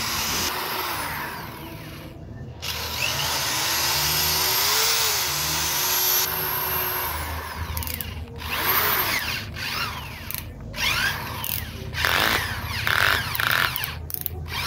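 Ralli Wolf RW-SD10 electric drill-driver's motor run in trigger bursts, its whine rising and falling with speed and stopping briefly several times. The drill is being test-run after repair.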